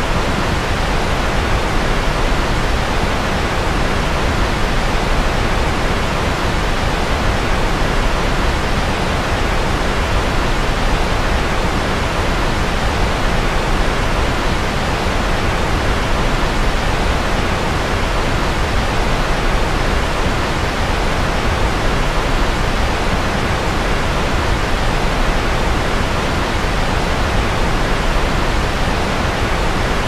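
Steady, unchanging white noise: a constant even hiss, fuller in the low and middle range than in the treble, with no breaks or events.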